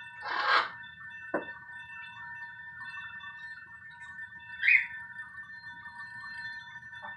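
Crystal glasses ringing by themselves: several steady high tones sounding together without a break. A short noisy burst just after the start is the loudest thing, followed by a sharp click a moment later and another brief sound past the middle.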